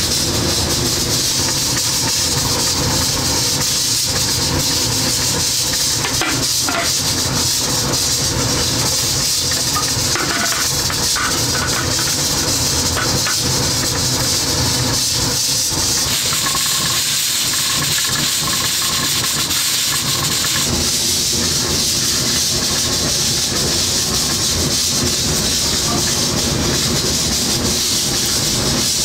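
Steady, loud hiss of steam in a restaurant kitchen, with a few faint clinks.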